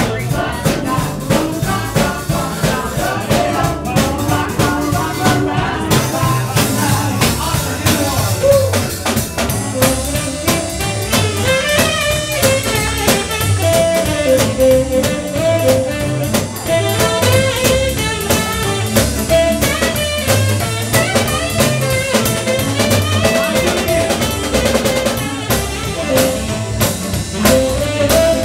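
Small live band playing: a drum kit keeps a steady beat under guitars, and a melody line comes in about ten seconds in.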